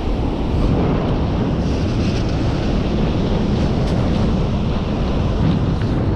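Strong wind buffeting the microphone in a steady low rumble, with ocean surf breaking beneath it.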